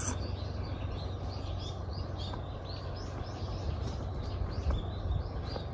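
Small birds giving short, high chirps over and over, several a second, over a steady low rumble.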